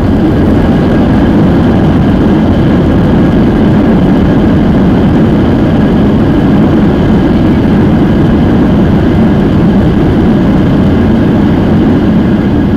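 Loud, steady roar in the cabin of a Boeing 737-800 during its landing rollout: its CFM56-7B engines and airframe heard from over the wing. The noise swells just as it begins and then holds steady.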